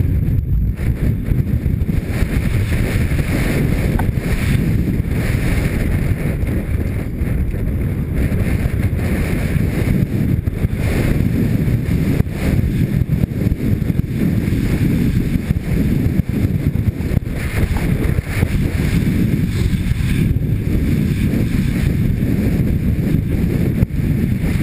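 Wind rushing over a helmet-mounted camera's microphone, with a steady rumble from a mountain bike's tyres and frame running fast down a loose, rocky dirt trail.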